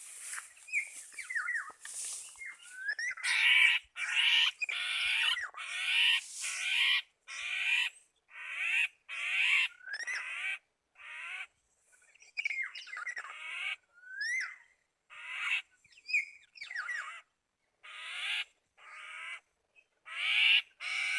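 Black-naped oriole calling: a long run of harsh, nasal squawks about once a second, mixed with short rising whistled notes.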